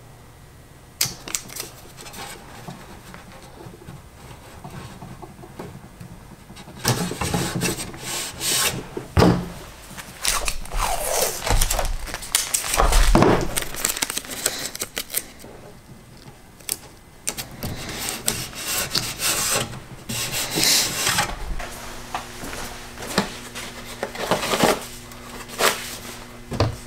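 Blue painter's tape being pulled off the roll and torn in repeated ripping bursts, with rubbing as the strips are pressed down along the rocket's fin joints. Scattered clicks and knocks of handling follow near the end.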